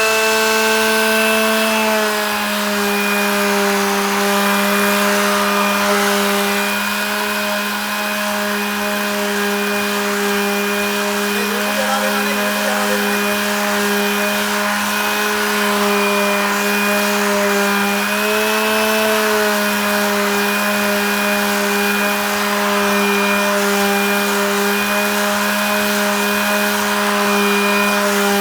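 Electric power tool motor running steadily with a constant whine. Its pitch drops slightly about two seconds in, then rises briefly and falls again later, as if the tool is taking up and easing off a cut in wood.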